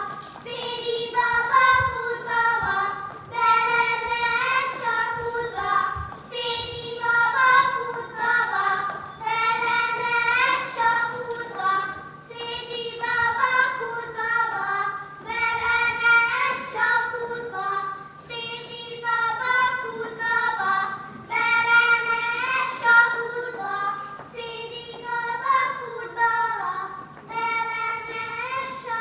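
Children singing a Hungarian folk song together, in short repeated melodic phrases, with a steady low hum beneath.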